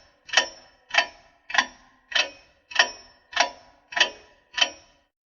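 Ticking-clock sound effect used as a thinking-time countdown: sharp, evenly spaced ticks, about one every 0.6 seconds. The ticks stop shortly before the end.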